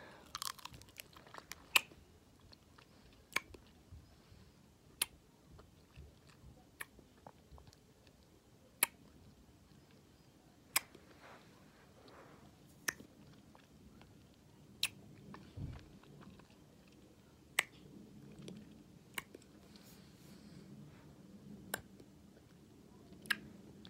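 Mouth sounds of eating a Warheads sour hard candy: sharp wet clicks and smacks every one to two seconds, with faint chewing between them.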